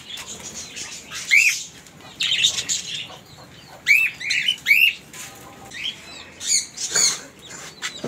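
Caged sun conures giving shrill, short screeching calls again and again, each one rising and falling in pitch.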